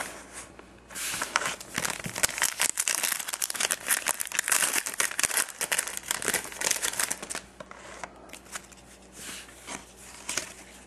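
Wrapper of a Panini Certified Football trading card pack crinkling and tearing as it is pulled from the box and opened. Dense crackling from about a second in, easing to lighter rustling over the last few seconds.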